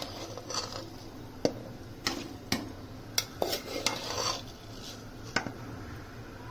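Metal spoon clinking and tapping against a cooking pot at irregular intervals, about ten sharp clinks, as soaked basmati rice is added to boiling masala water.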